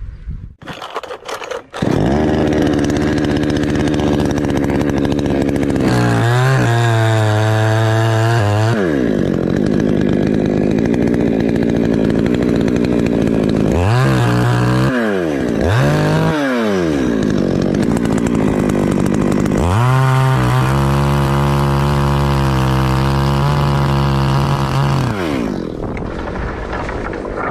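Chainsaw cutting a teak trunk: it runs slow, revs up to full throttle for a few seconds, gives two short blips of the throttle, then is held at full throttle for about five seconds through the cut. It drops back near the end.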